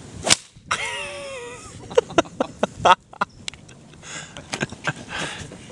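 A golf iron strikes a flip phone teed up on the grass: one sharp, loud crack about a third of a second in. Right after it a person's voice lets out a wavering cry that falls in pitch, and a few more sharp knocks follow around two and three seconds in.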